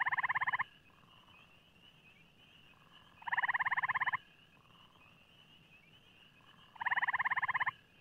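A frog calling three times, each call a rapid pulsed trill just under a second long, spaced about three seconds apart, over a steady faint high-pitched background hum.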